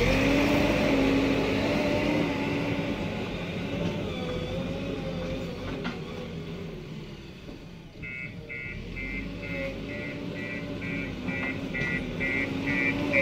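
JCB backhoe loader's diesel engine running as it works, its pitch going up and down with the load. From a little past halfway, a high beeper sounds over it, about two and a half beeps a second, like a reversing alarm.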